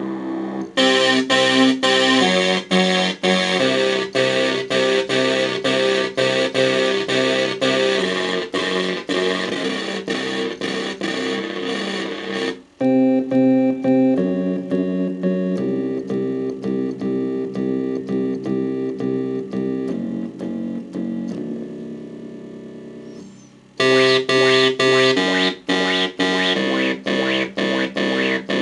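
Korg Kronos synthesizer playing a synth bass preset from the VITA Synth Bass EXi sound bank: a rhythmic, choppy run of repeated notes. It breaks off for an instant a little before halfway, fades on a held note about three-quarters through, then the choppy pattern starts again.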